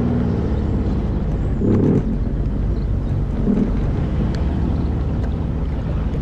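Engine of a Sea-Doo FishPro Trophy jet ski running steadily just after being started, as the ski moves off slowly through shallow water on its jet drive, with a brief rise in engine sound about two seconds in.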